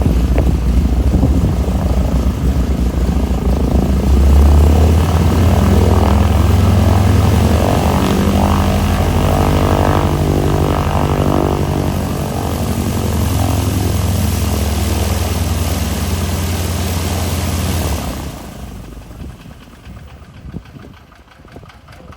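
Vintage radial-engine propeller airplane running with a loud, steady drone, its pitch shifting around the middle. The sound drops away suddenly a few seconds before the end, leaving only quiet background.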